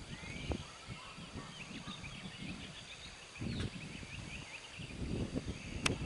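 Several small birds chirping and twittering, short rising and falling calls overlapping one another, over irregular low rumbling noise, with one sharp click near the end.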